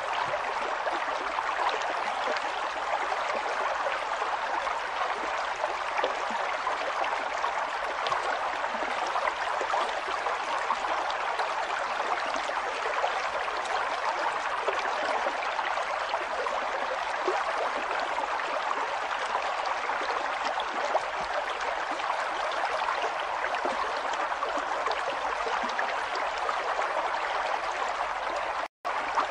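River water flowing steadily, an even rush of moving water. It cuts out for an instant near the end.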